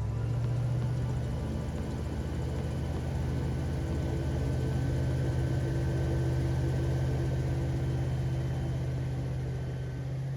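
Airboat engine and propeller running at a steady speed, a steady drone that picks up slightly in pitch at the very start.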